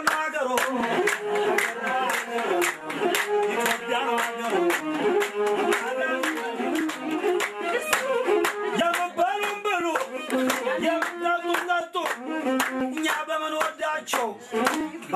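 A group of people clapping their hands in a quick, steady beat along with a sung melody that steps between held notes.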